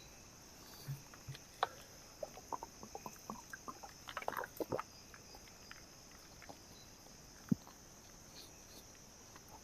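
Steady high-pitched chirring of night insects, with a run of small light clicks and knocks through the first half and one sharper tap about seven and a half seconds in.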